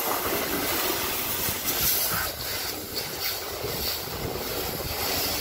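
A jet of water from a car-wash hose spraying against the side of the car, a steady hiss with some rumble underneath.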